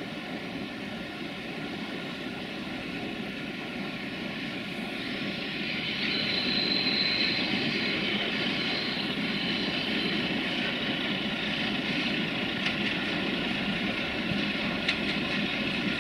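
Romanian 060-DA (LDE2100) diesel-electric locomotive running as it approaches, its Sulzer diesel getting louder about six seconds in, with a high steady whistle over it for a couple of seconds: the whistling for which this locomotive is nicknamed "Fluieroasa". A few sharp wheel clicks on the rails near the end.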